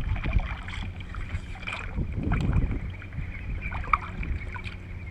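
Water lapping and splashing against a plastic fishing kayak's hull as it is poled through shallow water, with wind buffeting the microphone and a few small knocks.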